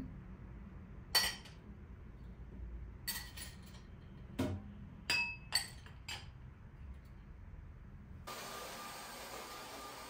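Glass cups and dishes clinking as they are set down on a stainless steel dish rack over the sink: about six separate clinks, some with a brief ringing tone. A steady faint hiss takes over about eight seconds in.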